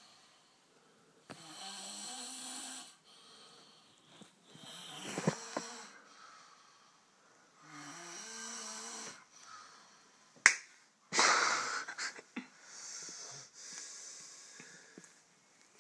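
Two sleeping people snoring, with rough, rasping snores about every three seconds. About ten seconds in there is a sharp click, then a louder noisy burst.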